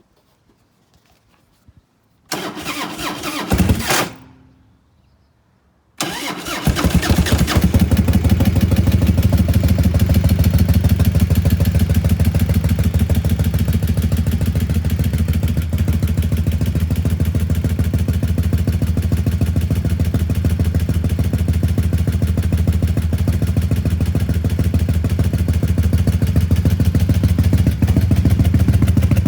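A 1993 Harley-Davidson V-twin is cranked for about two seconds without catching. A second attempt about six seconds in starts it, and it settles into a steady, loping idle for the rest of the time.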